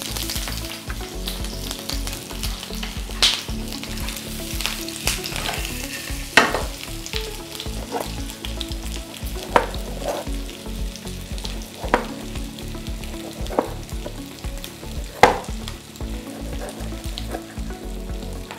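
Oven-baked chicken pieces frying in hot oil in a frying pan: a steady sizzle, with sharp clicks every few seconds.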